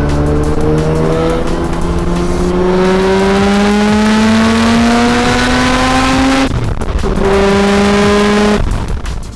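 Single-turbo 13B rotary engine of a Mazda RX-7 FD revving, its pitch climbing steadily for about six seconds. It breaks off, holds a steady note briefly, then cuts off near the end.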